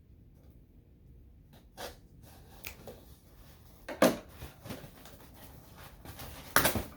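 Handling and opening a package: scattered short rustles and knocks, the loudest about four seconds in and another near the end.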